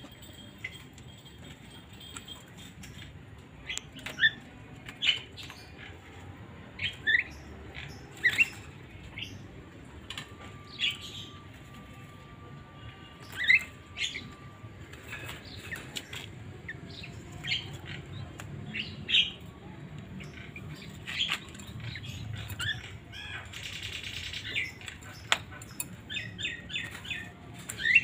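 Yellow-vented bulbuls (trucukan) giving short chirps, several with a quick rising pitch, spaced irregularly a second or two apart, with a brief rustle near the end.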